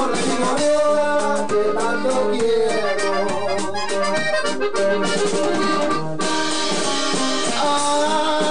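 Norteño band playing an instrumental break between sung verses: accordion leading the melody over strummed acoustic guitar and electric bass.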